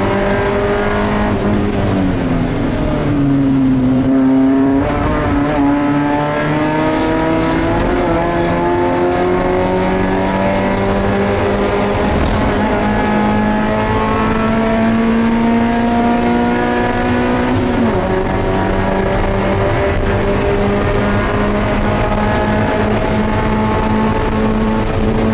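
A Spec Miata's four-cylinder engine heard from inside the cabin at racing speed. The revs fall over the first couple of seconds, then climb steadily for a long pull. They drop sharply once at a gear change about three quarters of the way through, then climb again.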